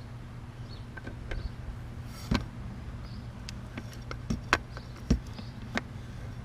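Hand grease gun being worked onto the sterndrive's zerk fittings: several irregular sharp clicks and knocks over a steady low hum.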